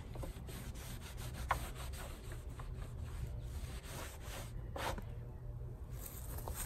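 A cloth rubbing and wiping over the plastic hull of a Hobie Adventure 16 kayak, drying the surface after cleaning, in a series of faint scuffing strokes over a steady low rumble.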